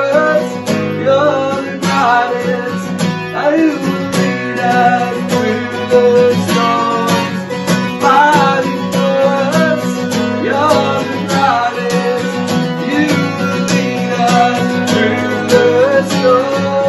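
Acoustic guitar strummed in a steady rhythm, accompanying singing of a worship song.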